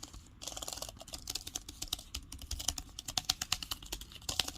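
Typing on an AUSDOM Sofkeys4 wireless keyboard's flat, low-profile keys: a rapid, quiet run of soft key clicks.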